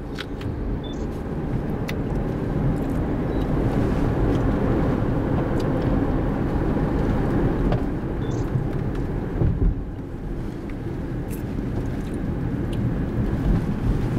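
Steady low rumble of a Honda CR-V's engine and tyres on asphalt, heard from inside the cabin while driving, with a few faint clicks.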